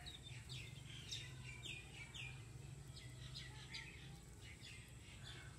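Small birds chirping: a run of short, high, falling chirps, about two a second, thinning out in the last second or so.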